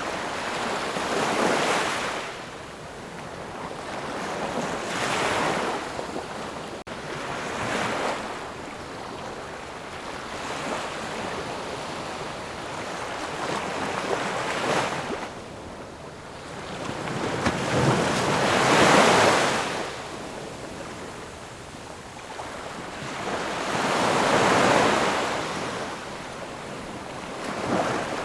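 Ocean surf: waves breaking and washing in one after another, each swelling to a rush and fading over a few seconds. The biggest wave comes a little past the middle.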